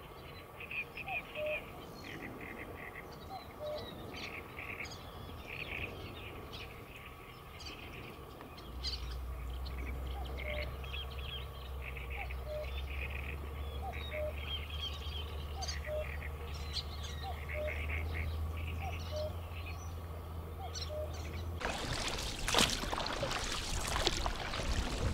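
Small birds chirping and calling again and again, with one short note repeated about once a second. From about nine seconds in a low steady rumble comes in, and near the end wind gusts buffet the microphone.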